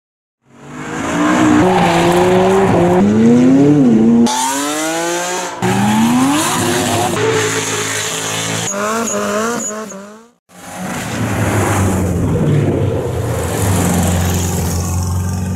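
Race car engines accelerating hard, rising in pitch through repeated gear changes, in several clips joined by abrupt cuts. After a brief silence about ten seconds in, a V8 car engine runs at low revs, rising and falling lightly as the car pulls away.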